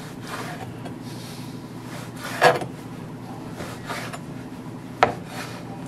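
Large kitchen knife cutting raw chicken breast on a plastic cutting board: soft scraping strokes of the blade through the meat, with two sharp knocks of the blade on the board, one about halfway through and one near the end.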